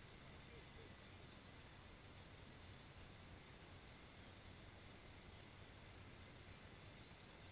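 Near silence: faint steady outdoor background hiss with a low rumble, and two brief faint high ticks about a second apart midway through.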